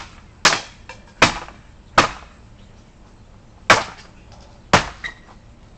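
Pick end of an Ontario SP16 SPAX rescue axe chopping into wood: five sharp, hard strikes, about one every three-quarters of a second, with a longer pause after the third.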